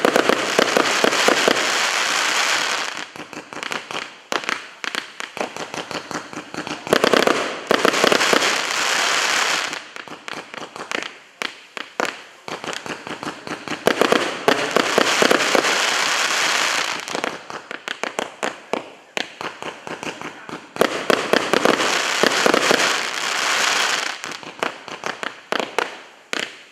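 'Ringing Bells' (Звонкие колокола) fireworks going off: rapid pops and crackling that swell into dense bursts of crackle about every seven seconds, with sparser pops between.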